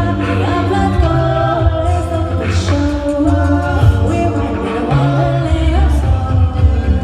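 An a cappella vocal group singing live in layered harmonies over a deep sung bass line.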